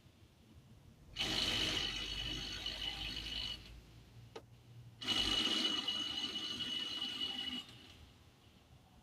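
A power tool runs in two bursts of about two and a half seconds each, with a steady high whine, while lug nuts or the jack are worked during a tire change.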